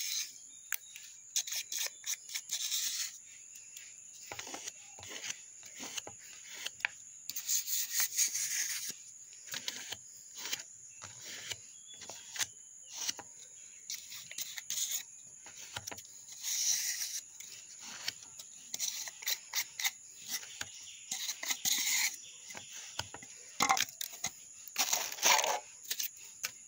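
Irregular rubbing and scraping as turmeric paste is scraped and mixed in plastic cups, with a few louder rustling bursts, over a steady high chirring of crickets.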